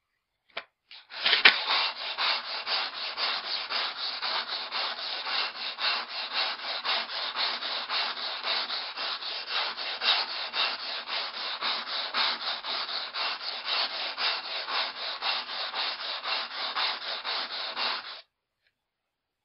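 Axe head drawn in rapid repeated strokes over coarse 120-grit wet-and-dry sandpaper on a foam sleeping mat, a steady rhythmic rasping that grinds nicks out of the convex edge. It starts after a couple of light clicks and stops abruptly near the end.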